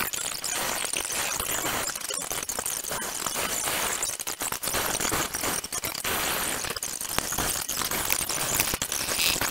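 Coloured pencil scratching on paper in quick, irregular shading strokes.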